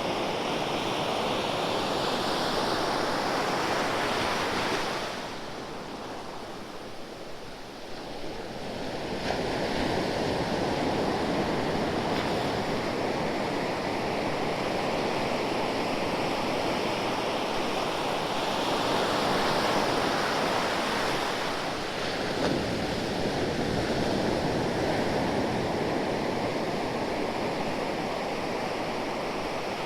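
Ocean waves surging and washing in as continuous surf, easing into a quieter lull about five seconds in and building back up around nine seconds.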